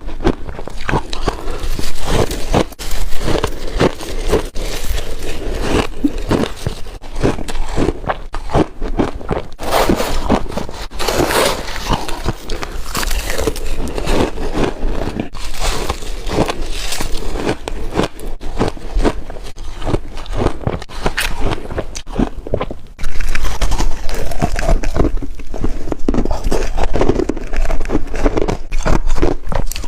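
Refrozen shaved ice chunks being bitten and chewed: a dense, continuous run of crunches and crackles, getting louder about two-thirds of the way through.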